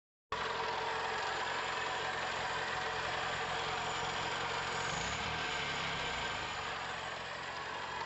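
Carbureted Nissan 12-valve engine idling steadily with the hood open.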